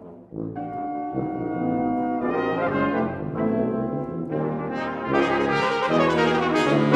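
Brass quintet of two trumpets, horn, trombone and tuba playing. After a brief quiet moment at the start, the ensemble comes in with held chords and grows louder and brighter towards the end.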